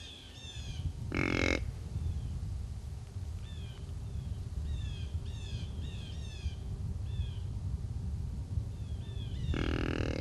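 A crow cawing twice, once about a second in and again near the end, over many short falling chirps from small birds and a steady low rumble.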